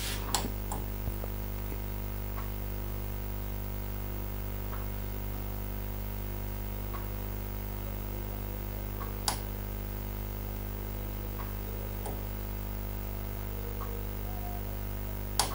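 Steady electrical mains hum, a low buzz made of several fixed tones, with a few faint clicks, the clearest about nine seconds in and another near the end.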